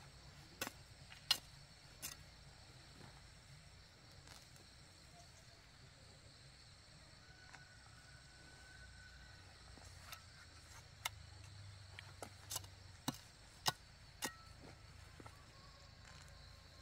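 Sharp, irregular knocks: three in the first two seconds, then about six more in quick succession later on, over a low, steady background hum.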